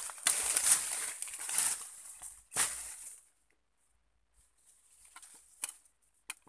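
Leaves and twigs of dense undergrowth rustling and crackling as someone pushes through on foot, loud for about three seconds. After a short pause come faint rustles and a couple of sharp snaps.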